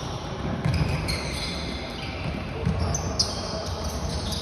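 Floorball play in a large sports hall: players' sneakers squeaking on the court floor, with a few sharp clacks of sticks and the plastic ball, the loudest a little after three seconds in.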